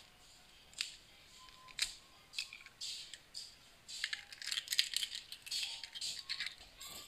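A raw egg tapped against the rim of a small ceramic bowl and broken open: a few separate sharp taps, then crackling of eggshell that grows busier in the second half.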